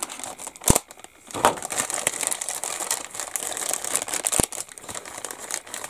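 Clear plastic parts bag crinkling and rustling as it is handled and slit open with a hobby knife, with two sharp clicks, one just under a second in and one about four seconds later.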